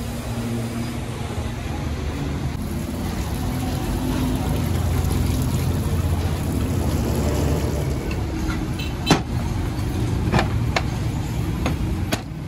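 Steady low rumble of road traffic, with a few sharp metal knocks in the last few seconds from a hammer striking the steel base of a hydraulic jack.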